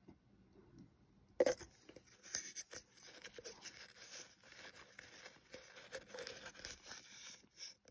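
A spoon digging and scooping through loose cornstarch powder in a plastic tub: a soft, dense crunching and crackling full of small clicks. It starts with a sharp scoop about a second and a half in and runs on until just before the end.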